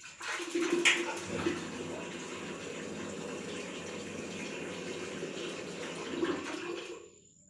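Water running hard from a tap through the geyser's plumbing, turned on suddenly with a sharp click about a second in, then shut off near the end.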